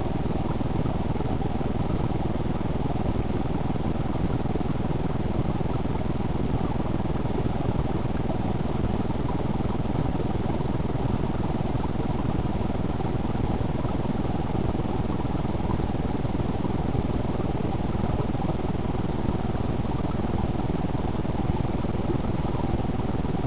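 Steady low rumble and hiss of water heard through an underwater camera's microphone, even throughout with no distinct events.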